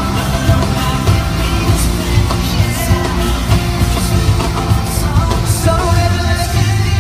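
Amplified pop music played over a concert sound system, with a heavy steady bass, a regular beat and a voice singing.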